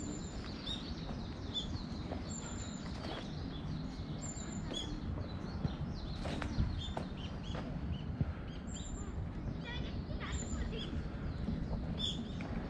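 Small birds chirping in short, repeated high calls, with a quick trill about ten seconds in, over a steady low outdoor background noise.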